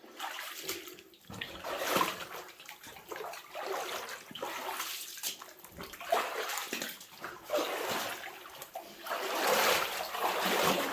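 Someone wading through shallow water on a mine tunnel floor, a series of uneven splashes and sloshes about once a second.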